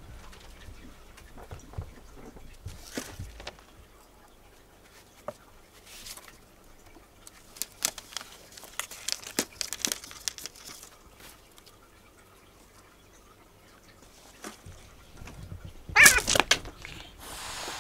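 Cats' claws scratching and scuffing on a corrugated-cardboard scratcher: scattered short scrapes and taps, then a sudden loud scuffle near the end as one cat leaps onto the scratcher and the other swipes at it.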